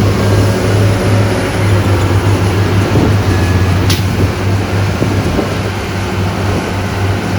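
Heavy diesel earthmoving machinery running with a steady low drone, with a brief sharp click about four seconds in.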